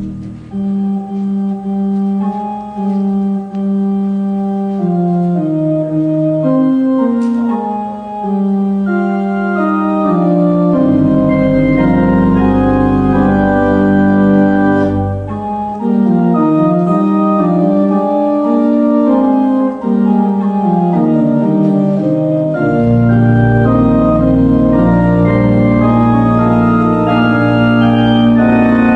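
Church organ playing a slow piece of held chords that move step by step. A deep pedal bass comes in about eleven seconds in, drops out, and returns about twenty-three seconds in.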